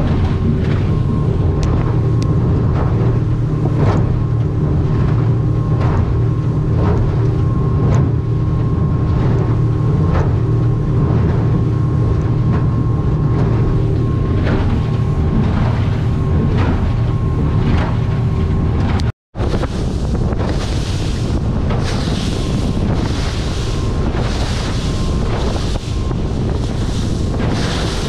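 A boat's outboard motor runs steadily at cruising speed through rough water, with repeated knocks as the aluminium hull meets the waves. After a brief cutout about two-thirds in, heavy wind buffeting on the microphone and rushing water take over.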